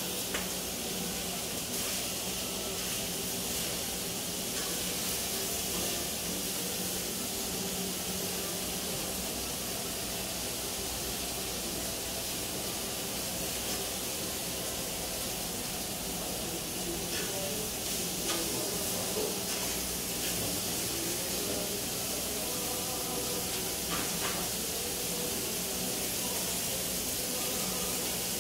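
Beef steaks sizzling on cast-iron plates over charcoal: a steady hiss with a low hum underneath and a few faint clicks of metal tongs.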